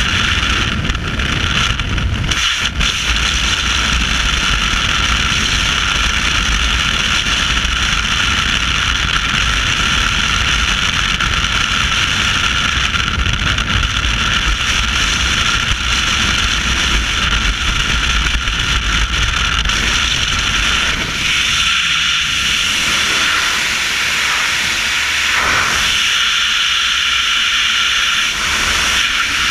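Freefall wind rushing over a helmet-mounted action camera's microphone: a loud, steady hiss with a heavy low rumble, the rumble easing for short stretches after about 21 seconds in.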